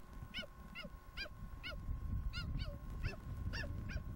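Cheetahs chirping: short, high, bird-like calls repeated two to three times a second, over a low rumbling noise.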